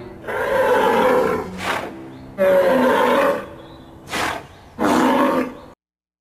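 Cartoon monster-roar sound effects: three loud roars of about a second each, with short sharp bursts between them, cutting off abruptly near the end.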